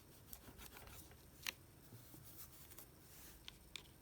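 Near silence with a few faint, brief clicks and taps of hands handling the adhesive and small parts of an opened phone.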